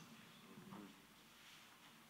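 Near silence: the room tone of a lecture hall, with a faint, distant murmur of a voice under a second in.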